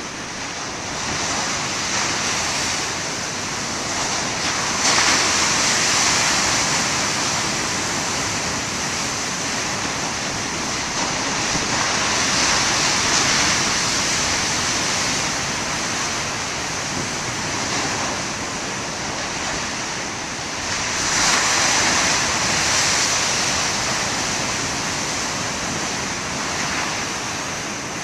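Heavy ocean surf: large waves breaking and foaming in a steady rush of noise that swells louder about five seconds in and again a little past twenty seconds.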